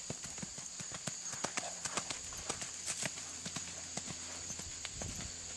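Welsh pony's hooves striking the sandy footing of a riding arena: a quick, uneven run of hoofbeats as the pony moves at speed, easing off near the end.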